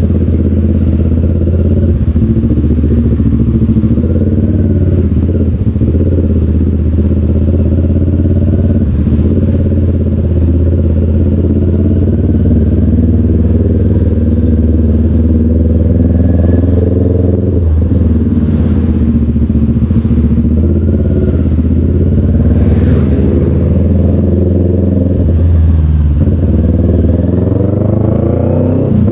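Motorcycle engine running at low revs, close to the onboard camera, its pitch rising and falling a little as the bike rolls along slowly in traffic.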